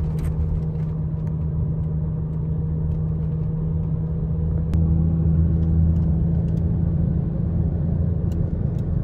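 Car driving, heard from inside the cabin: a steady low engine and road rumble with a constant low hum, a little louder from about halfway through, and a few faint clicks.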